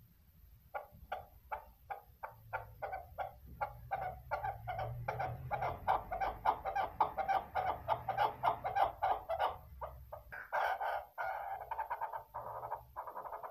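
Female chukar partridge calling: a series of short clucking 'chuk' notes, a couple a second at first, then quickening to several a second and growing louder, running into a dense burst of calls after about ten seconds.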